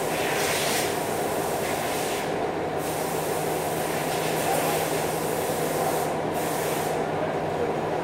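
TIG welding arc on 6-inch stainless steel pipe, walked along the joint with the cup: a steady hiss and buzz. The high part of the hiss drops out briefly twice, a couple of seconds in and again about six seconds in.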